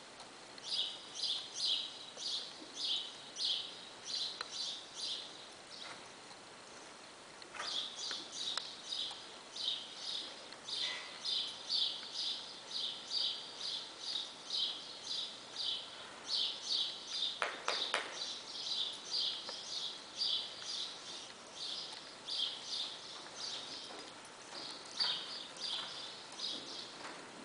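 Light, rhythmic jingling of a horse's western tack and the rider's spurs in step with the horse's stride, about two to three jingles a second, stopping briefly twice. A short, sharper sound stands out about two-thirds of the way through.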